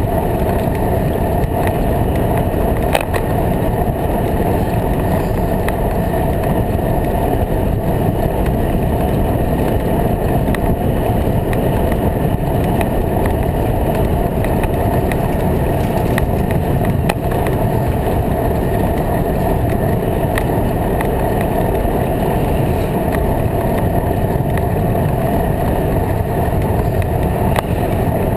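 Steady low rumble of a bicycle ride on a bike-mounted GoPro: wind on the microphone and tyres rolling over the bridge deck, with a few light clicks.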